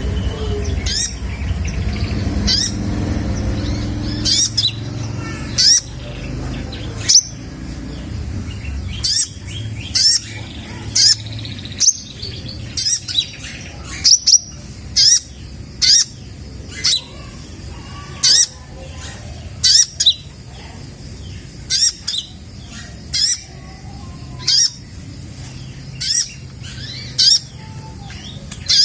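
Red-breasted 'kolibri ninja' sunbird calling: short, sharp, high chirps repeated about once a second, over a low background rumble that is heavier during the first several seconds.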